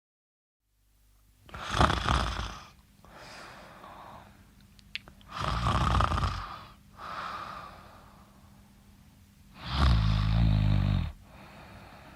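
Snoring: three loud snores about four seconds apart, each followed by a quieter breath. The third snore has a low buzzing rattle.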